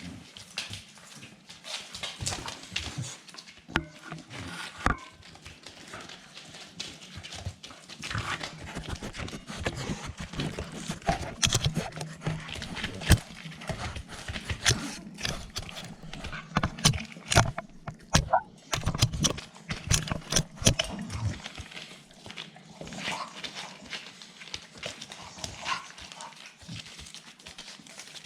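Staffordshire bull terrier puppies scuffling and playing, with irregular clicks and knocks from paws and bodies and a few short puppy vocal sounds; busiest in the middle.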